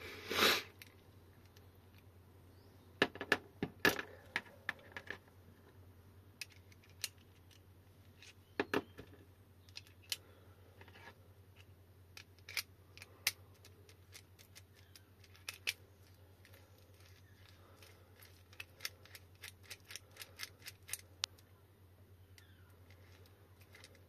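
Small metal parts of an e-bike battery lock barrel and its key clicking and tapping as they are handled and taken apart: scattered sharp clicks, some in quick runs of several, over a low steady hum. A brief louder noise opens it.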